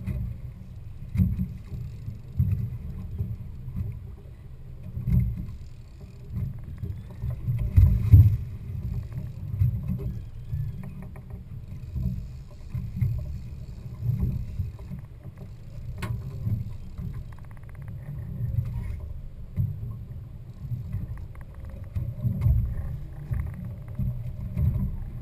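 A low, uneven rumble of a fishing boat at sea, surging and easing every second or two, with a sharp click about sixteen seconds in.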